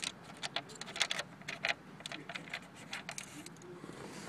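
Screwdriver backing a Phillips screw out of a plastic dash panel: a run of small, irregular clicks and scrapes.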